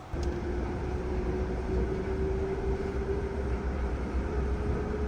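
Train running, heard from inside the carriage: a steady low rumble with a motor whine that steps up in pitch about four seconds in as the train gathers speed. The sound comes in suddenly just after the start.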